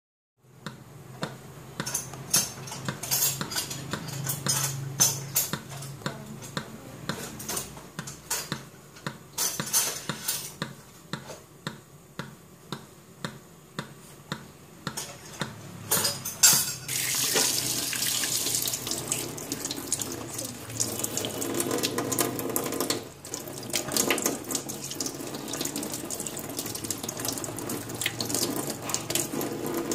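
Scattered sharp clicks and clatter, then about halfway through a kitchen tap starts running steadily into a stainless steel sink as raw brains are rinsed by hand under the stream.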